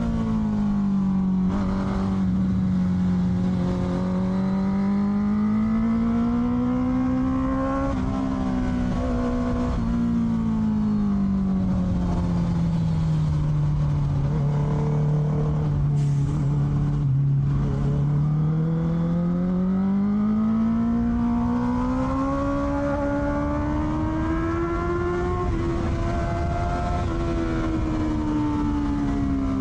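Honda CBR650R's inline-four engine through an Akrapovic exhaust, pulling along a winding road. Its note slowly falls and rises with the throttle and dips lowest about halfway through, over a steady rush of wind and road noise.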